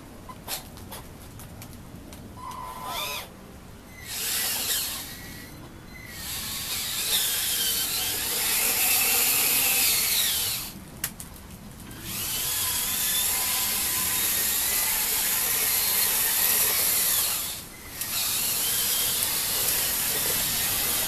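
Radio-controlled scale Scania 8x8 hydraulic dump truck's electric motors and gearing whirring in several multi-second bursts with short pauses between, as the model drives and its hydraulic tipper raises the bed.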